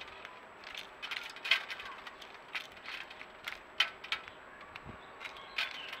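House sparrow pecking and cracking seed on a bird feeder's tray: irregular sharp clicks, about three a second.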